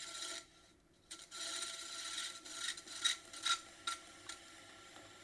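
Metal trimming tool scraping leather-hard clay on a spinning potter's wheel: a dry rasping scrape that starts, breaks off briefly, and resumes, with a few sharper scrapes around three to four seconds in. It then dies down to a faint steady hum.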